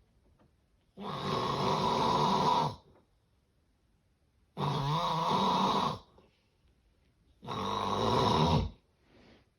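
Heavy snoring: three loud, rasping snores, each lasting well over a second, with near-silent pauses between breaths. The recording is presented as the snoring of severe sleep apnea.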